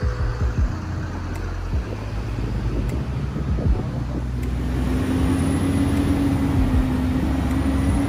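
Motorcycle engine and road noise while riding in city traffic, with a low, unsteady rumble throughout. A steady engine drone joins about halfway and holds.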